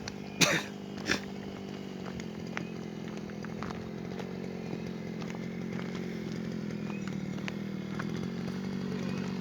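Small petrol engine of a grass cutter running steadily at high revs, growing slightly louder. Two sharp knocks sound within the first second and a half.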